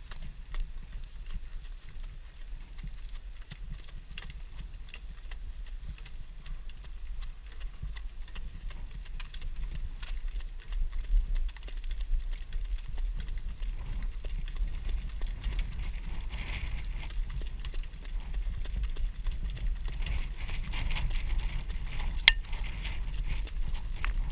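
Harness horse's hooves beating on the dirt track as it pulls a sulky at speed, heard from the sulky seat, with a steady low rumble of wind on the microphone. Two sharp clicks come near the end.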